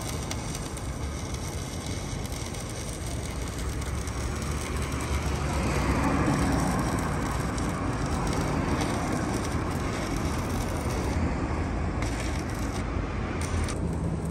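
Stick arc welding on a steel channel: a steady crackling hiss from the electrode's arc, swelling slightly about halfway through.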